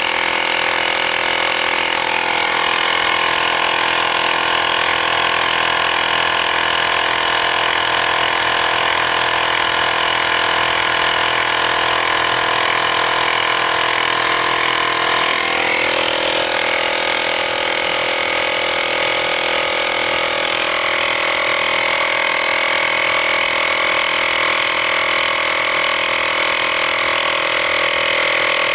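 Air Hawk portable cordless air compressor running steadily as it pumps up a lawn mower tire, with the pressure building from about 5 PSI. Its pitch drops slightly about halfway through.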